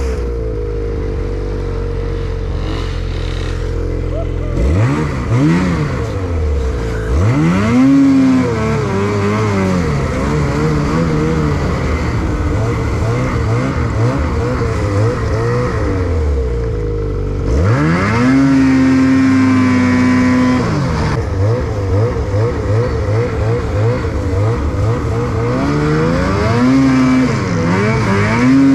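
Snowmobile engine running under the rider, revving up and easing off again and again. There are short rises about five and eight seconds in, a longer rev held high about two-thirds of the way through, and more rises near the end.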